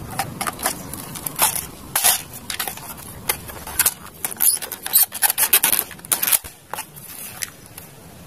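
Plastic toy AWM sniper rifle being handled: an irregular string of sharp clicks and rattles from its plastic parts and magazine.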